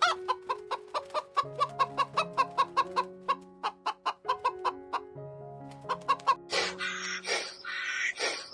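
Chicken clucking in quick short notes, about four a second, over background music. Near the end the clucks give way to harsher, noisier calls repeating about every second.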